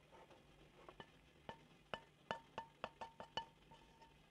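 A series of about ten light metallic clinks, three or four a second, each with a short ring: a kitchen utensil knocking against a metal steamer pot.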